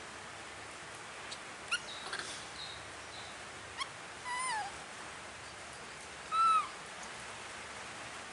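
A baby monkey calling: a few short rising squeaks, then two longer coos, one falling and wavering, the other arched and the loudest, about two-thirds of the way in.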